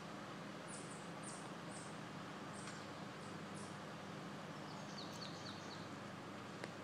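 Birds chirping: a run of short, very high chirps about two a second, then a quicker series of lower chirps about five seconds in, over faint steady background noise. A single click near the end.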